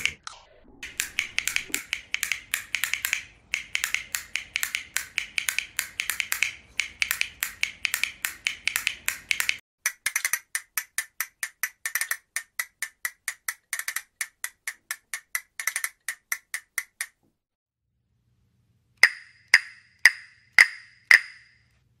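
Castanets clacking. Fast rattling rolls of clicks come first, then a steady run of about six clicks a second. After a pause of about two seconds, single clacks follow a little over half a second apart, each ringing slightly.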